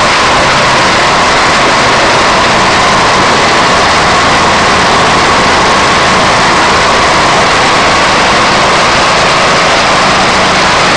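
Organic-waste crusher machine running, a loud steady mechanical noise with a constant whine and a low hum.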